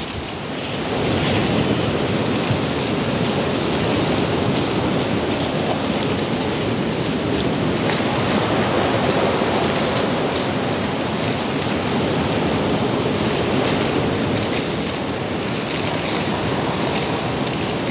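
Aluminium foil crinkling and rustling continuously as it is folded and pressed down around a fish parcel.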